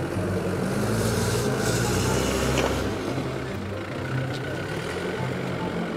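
Forklift engine running steadily, a little louder in the first half, while it drags a steel crawler track chain over cobblestone paving. The links scrape and rattle on the stones as the chain is rolled up.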